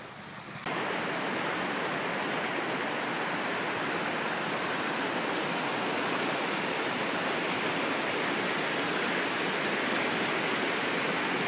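Shallow river rapids rushing over rocks, a loud, steady whitewater noise that comes in abruptly under a second in.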